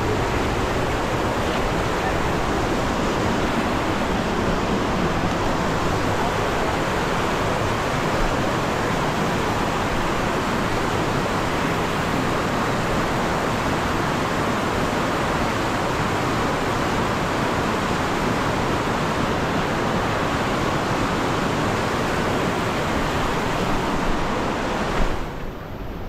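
Steady rushing of a fast mountain river's white-water rapids pouring over boulders. It drops away sharply about a second before the end.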